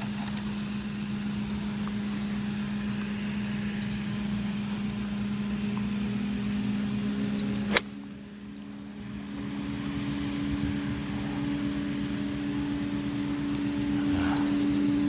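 A 48-degree golf wedge striking the ball on a pitch shot: one sharp crack a little under eight seconds in. Under it runs a steady machine hum that rises a little in pitch just before the strike.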